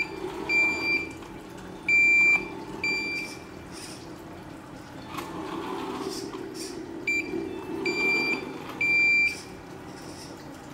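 Reversing beeper of a Tamiya 1/14 Mercedes-Benz Actros RC truck: a high electronic beep sounds four times early on, then three times in the second half, over a low steady hum from the truck.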